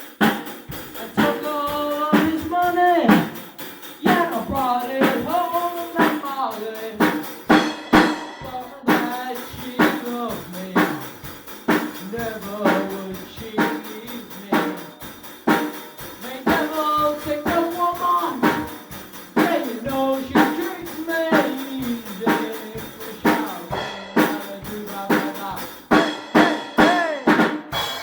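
Drum kit playing a fast, busy beat of snare, bass drum and rimshots, with a pitched line that slides up and down over it.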